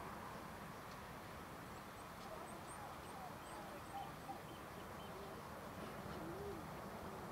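Outdoor ambience: a faint, steady background hiss with birds calling, a run of thin high chirps a couple of seconds in and a few lower calls later on.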